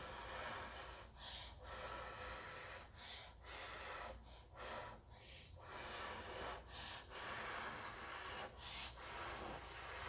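A person blowing steadily through the mouth across wet, thinned acrylic paint on a canvas to spread it into waves: a string of breathy blows of one to two seconds each, broken by short pauses for breath.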